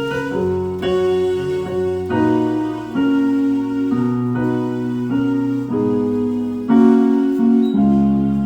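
Electronic keyboard with a piano sound playing slow, sustained chords of a worship song, the chords changing about every second.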